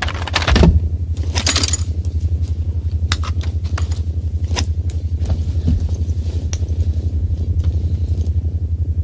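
Low, rapidly pulsing machine hum with scattered sharp metallic clicks and clinks over it. There are two short rushing noises in the first two seconds.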